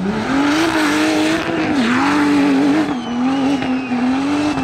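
Off-road race car's engine running hard under throttle, its pitch climbing at the start and then rising and dipping as the throttle is worked, with a rush of noise over it for the first three seconds.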